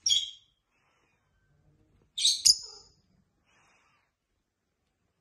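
A lovebird giving a short, high-pitched chirp at the start and a louder double chirp about two seconds later.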